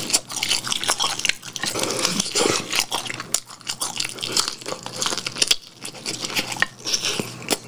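Close-miked eating of sauce-coated fried chicken: biting and chewing with irregular crunches and crackles.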